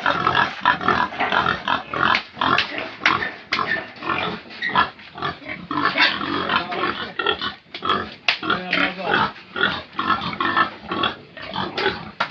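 Pigs grunting and squealing continuously, with scattered knocks and clatter as they are handled and moved.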